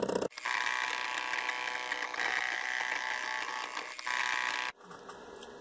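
NEJE desktop laser engraver running with the new laser burning an image into wood: the motors moving the laser head make a steady high buzzing whine. About four and a half seconds in it drops suddenly to a much fainter hum.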